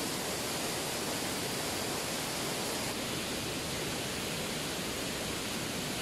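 Steady rushing of a river current and small waterfall close by: an even hiss of flowing water with no change in level.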